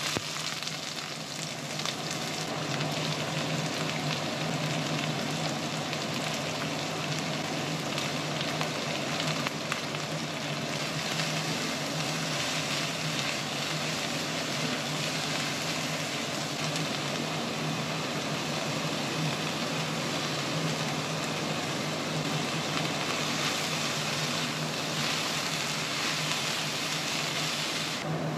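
Sliced vegetables sizzling in hot oil in a stainless steel wok on high flame, a steady frying hiss, with occasional clicks and scrapes of a spatula as they are stirred. A steady low hum runs underneath.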